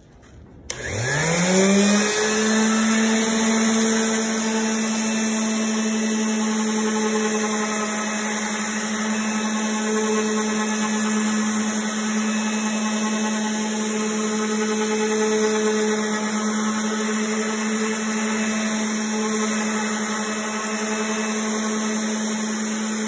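Random orbital sander starting up, its tone rising over the first couple of seconds, then running at a steady pitch as it sands the face of a black walnut and hickory cutting board.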